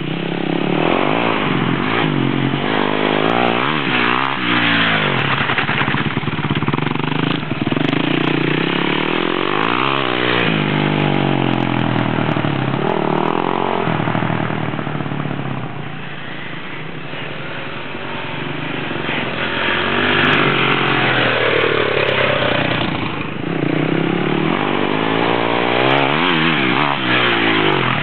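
Dirt bike engine revving up and dropping back again and again as it is ridden, its pitch rising and falling with the throttle and gear changes. It grows quieter for a few seconds past the middle as the bike moves away, then is loud again near the end as it passes close.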